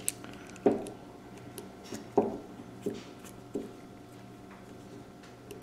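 Light clicks and knocks from a Ruger PC Carbine's trigger group being handled and fitted by hand as the trigger spring is seated. There are a handful of short, irregularly spaced knocks, then a sharper click right at the end.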